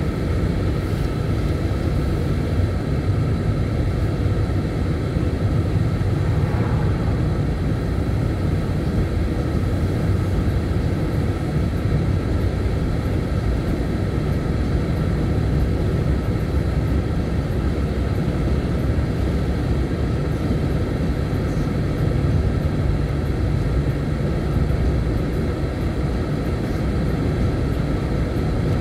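Steady, continuous rumble of a moving vehicle, with most of the noise low down and no breaks or changes.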